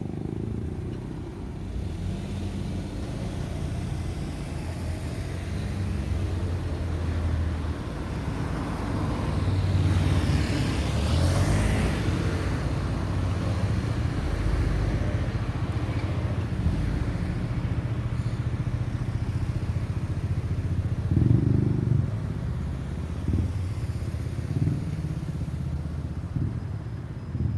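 Road traffic: vehicle engines running with a low hum, and a vehicle passing close by about ten to twelve seconds in, with a few short knocks later on.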